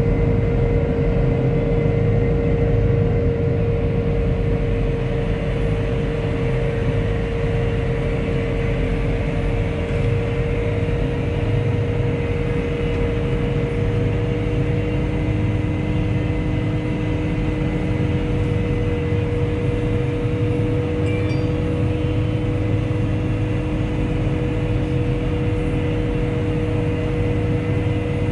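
Farm tractor with a front loader driving steadily down the road, heard from inside the cab: a constant low engine rumble with a steady high whine running over it.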